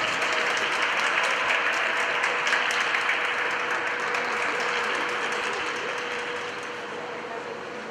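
Audience applauding, the clapping dense at first and then thinning and fading away over the last few seconds.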